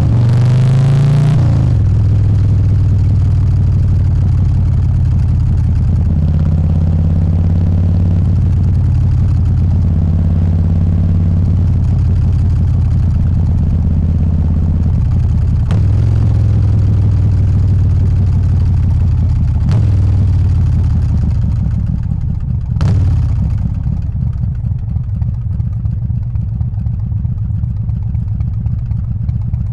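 Harley-Davidson Softail's 124-cubic-inch S&S Evo V-twin engine running loud, its pitch climbing and then stepping down with a gear change about a second and a half in. It holds a steady cruise, then after about twenty-two seconds falls to an uneven idle. A few sharp clicks sound along the way.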